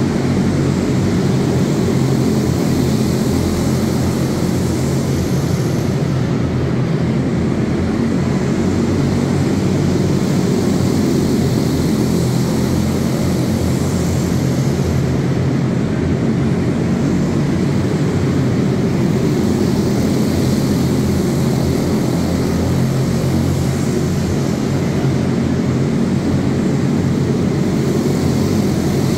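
Several quarter midget race cars with single-cylinder Briggs & Stratton Animal engines buzzing together at racing speed around the track, a loud, steady drone inside a large indoor arena.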